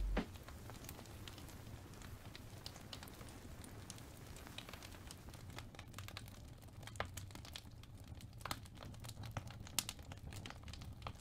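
Faint scratching and scattered light ticks of a paintbrush working oil paint on sketchbook paper, over a low steady hum.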